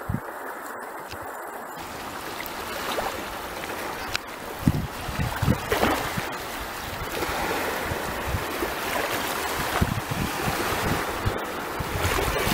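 Small sea waves washing over a low rocky shore, with wind gusting across the microphone in irregular low thumps.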